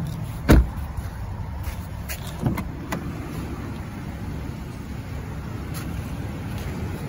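A 2011 Buick Enclave's side door is shut with one heavy thump about half a second in. Lighter clicks and knocks follow about two seconds later, over a steady low rumble.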